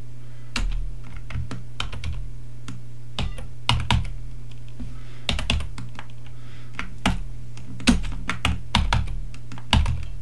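Computer keyboard keys pressed in scattered single clicks and short quick clusters, not continuous typing, over a steady low hum.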